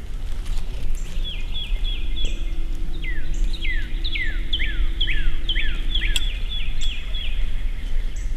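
A songbird singing runs of quick, clear whistles, each sliding down in pitch, over a low, steady rumble.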